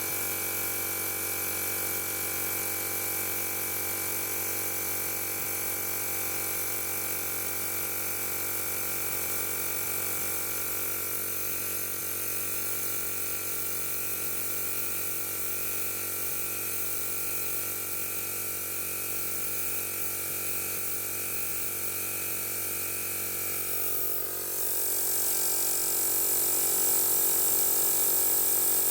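Airmaster Tiger 8/260 air compressor motor and pump running steadily with a whine, slowly filling the tank. About four-fifths of the way through the sound shifts and grows louder with a high hiss added.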